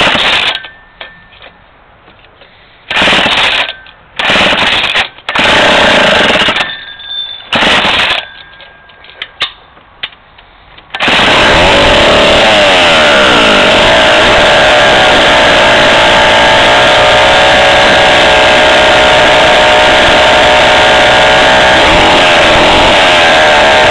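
Vintage Mono model 93 two-stroke chainsaw, with no chain fitted, being pull-started. Several short, loud bursts on the first pulls, then it catches about eleven seconds in and runs steadily, its engine speed rising and falling a few times as the throttle is worked. It is running smoky on a little extra oil in the fuel because it is not yet broken in.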